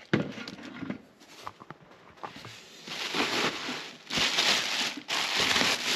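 Packaging rustling and crinkling in long stretches, after a few light knocks in the first two seconds.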